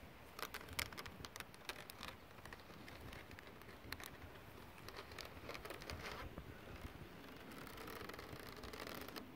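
Fingertips and nails scratching and picking at a trampoline's mesh safety net, giving quick, irregular crackly ticks, which thicken into a denser scratchy rustle near the end.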